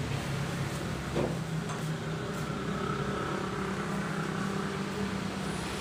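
A steady motor hum runs throughout, with a few faint clicks from small parts being handled.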